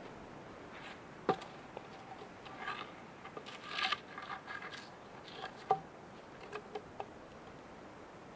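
Wooden stake and logs being handled at a stone fire ring: a few sharp wooden knocks, about a second in and again just before six seconds, with scraping and crunching in between.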